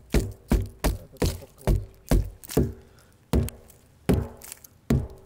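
A hammer knocking packed ice off the wheel rim of a Sherp ATV: about a dozen sharp blows, roughly two a second with a short pause about three seconds in, each leaving a brief ringing tone. The ice built up on the wheels has been making the machine hum low while driving.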